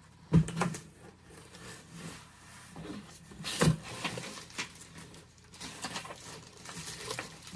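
Cardboard shipping box and packaging being handled and rummaged through: rustling and crinkling with knocks, the sharpest about half a second in and another a little past the middle.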